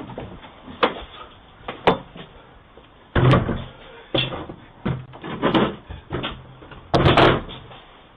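A series of about eight irregular knocks and bangs, the first two lighter and the heaviest ones starting about three seconds in and again near the end.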